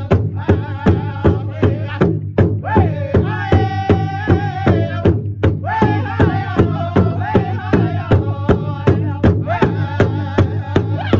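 Powwow drum group: several singers striking a large shared drum in unison at about three beats a second while singing a high-pitched chant with long held notes, broken by two short pauses for breath.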